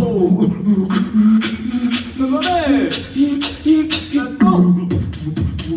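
Human beatbox: a hummed bass line stepping between a few low pitches, with sharp snare-like clicks about every half second. Falling vocal sweeps come in the middle and again near the end.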